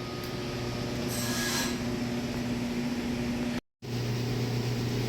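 A steady low mechanical hum over background noise, with a short hiss about a second in and a brief total dropout to silence a little after three and a half seconds.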